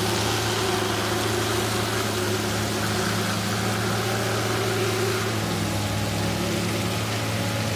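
Electric winch running steadily under load, reeling in its line to drag a stuck SUV out of deep mud: an even, unchanging motor drone.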